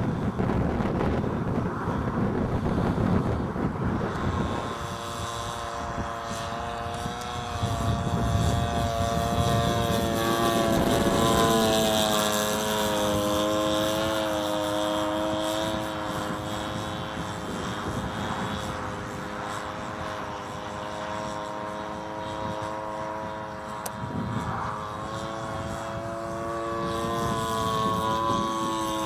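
Engine and propeller of a small biplane flying overhead: a steady pitched tone that wavers and shifts in pitch as the plane passes and turns. A low rumble of wind on the microphone fills the first four seconds before the engine tone comes through.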